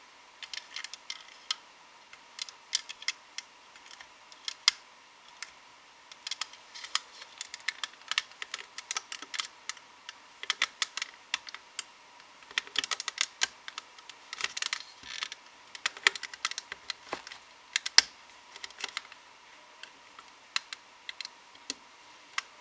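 Irregular small clicks and taps of a hook tool against the clear plastic pegs of a rubber-band loom, as loom bands are pulled over the pins.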